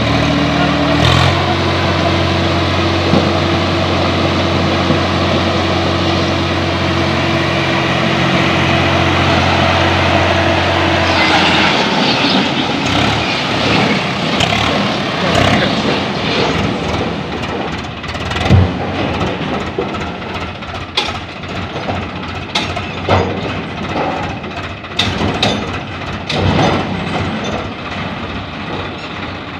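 Swaraj 744 XT tractor's three-cylinder diesel engine running under load, stepping up in pitch about a second in and holding steady. After about 11 seconds the steady engine note gives way to a rougher rumble with scattered sharp knocks and clatter as the tractor moves off with its trolley.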